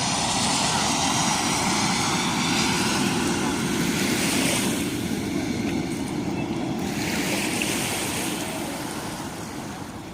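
Sea waves washing onto a beach, the hiss of the surf swelling twice. A passing aircraft's drone fades out in the first few seconds.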